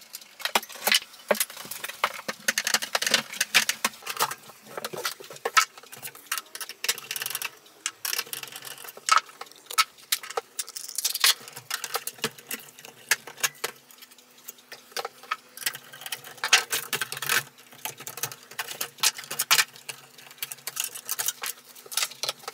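Hands unplugging and pulling power cables inside an open PC tower case: a busy run of clicks, taps and rattles of plastic connectors and cables against the metal case.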